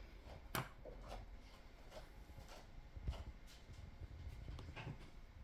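Quiet room with a few faint, scattered clicks and taps from handling things, the sharpest about half a second in.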